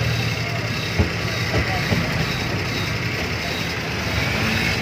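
Vehicle engine running steadily, heard from inside the passenger compartment, with a sharp knock about a second in and a few lighter rattles.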